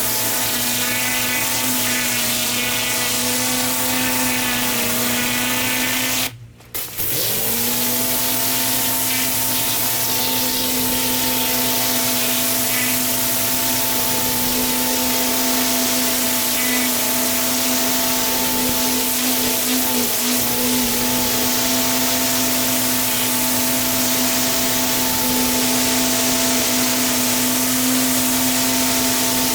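Pressure washer running: a steady motor-and-pump hum under the loud hiss of the water spray on block paving. It cuts out briefly about six seconds in and then resumes at the same pitch.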